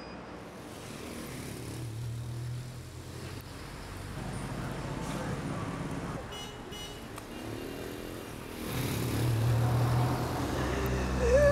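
City street traffic: car engines running and passing, with a low hum that swells louder about three-quarters of the way through. A short wavering whine comes right at the end.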